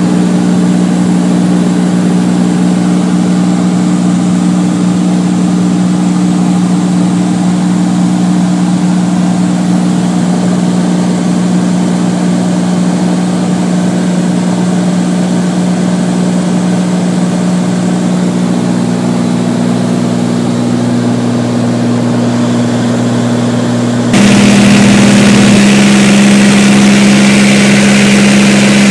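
Single-engine Beechcraft Bonanza's piston engine and propeller droning steadily in the cabin in flight. Near the end it jumps abruptly to a louder drone of slightly different pitch.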